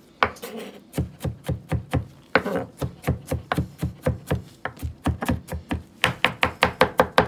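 Chef's knife chopping garlic on a plastic cutting board: a steady run of sharp knocks, about four a second, quickening to about six a second near the end.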